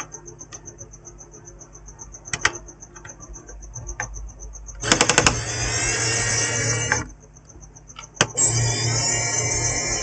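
Electric screwdriver running in two bursts of about two seconds each, driving screws into the laptop to hold it together for a test. A steady high pulsing chirp sounds in the background.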